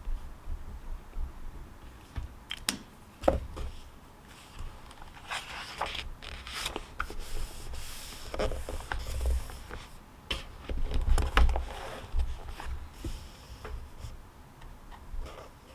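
Pen scratching on paper in irregular strokes, with clicks and dull knocks on the desk; the sharpest knock comes about three seconds in and a run of heavier bumps comes around eleven seconds.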